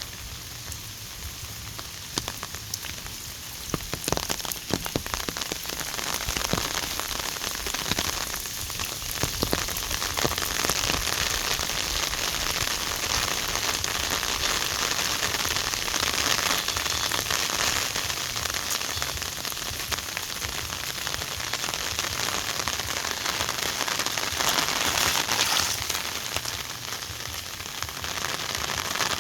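Heavy rain falling, a steady hiss with scattered sharp drop ticks, growing louder from about six seconds in.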